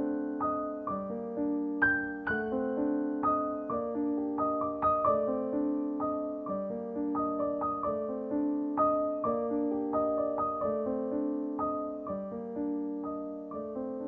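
Background piano music: held chords under a steady flow of single melody notes, each struck and fading away.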